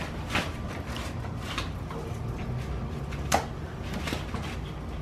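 Scattered light knocks and scuffs from people and small dogs moving about wicker patio furniture on a concrete floor, the sharpest a little over three seconds in, over a steady low rumble.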